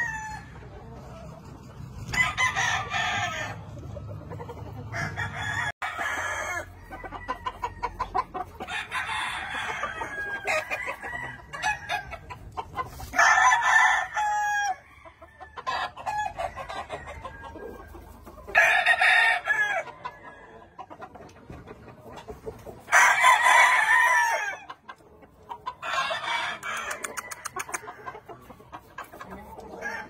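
Roosters crowing repeatedly, one crow every three to five seconds, some loud and close and others fainter, with clucking between the crows.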